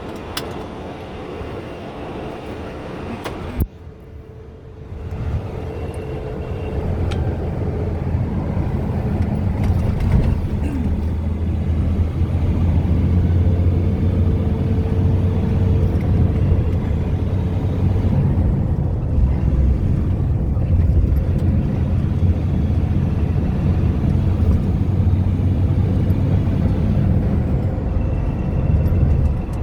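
Vehicle engine and road rumble heard from inside the cab while driving, steady and low. It dips briefly after a sharp click about three and a half seconds in, then builds and stays loud.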